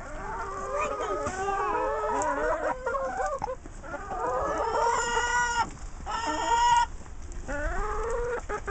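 A flock of brown hens clucking as they feed, many overlapping calls, with two longer drawn-out calls a little after the middle.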